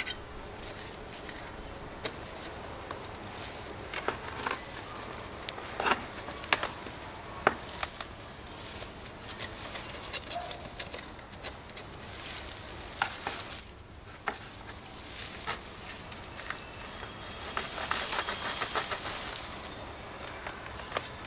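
Close rustling and crackling of dry leaves, grassy stems and crumbly dry potting soil as a rooted plant clump is worked loose and pulled from a pot by hand, with scattered snaps and scrapes. The rustling grows louder and denser for a couple of seconds near the end.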